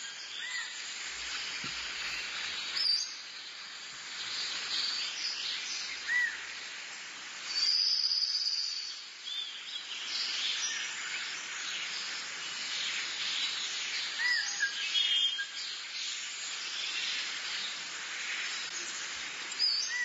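Many birds chirping and calling at once, with short high calls overlapping over a steady hiss. A few louder calls stand out, the longest about eight seconds in.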